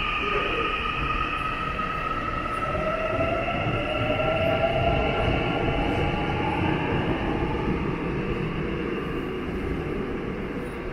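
Subway train running through the station: a steady rumble of wheels on rail with electric motor whines that glide slowly in pitch, one rising through the middle, loudest near the middle.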